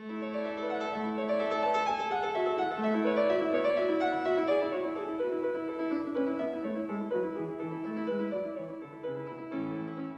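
Piano music: a quick melody over chords, with many notes sounding together.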